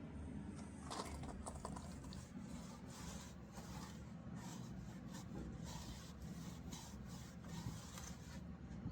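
Repeated hand strokes rubbing across a wooden surface, about two a second, with a few light clicks about a second in.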